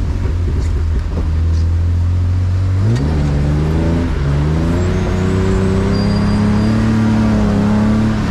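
BMW E36 engine running at low, steady revs, then pulling away about three seconds in. The revs climb, dip briefly about a second later, then rise slowly again before easing off near the end.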